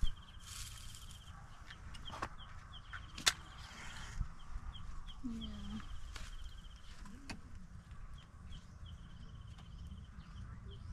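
Matches struck against a matchbox to light a cooking fire: a short scratch about half a second in, then a sharp strike about three seconds in with a brief hiss as the match flares, and a few lighter scrapes later. A bird's rapid chirping trill comes and goes behind it.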